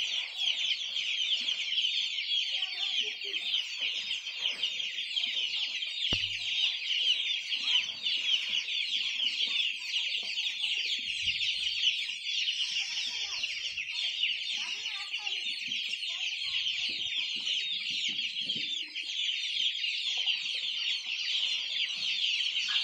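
A large flock of young chicks peeping without pause, a dense chorus of many overlapping high-pitched cheeps.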